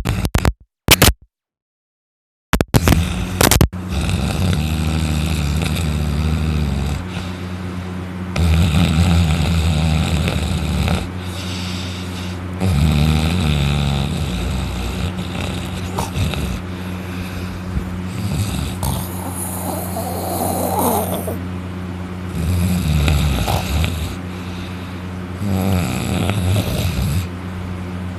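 Loud, heavy snoring from a man sleeping on his back with his mouth open, a snore every three to four seconds. The sound cuts out completely a few times just after the start.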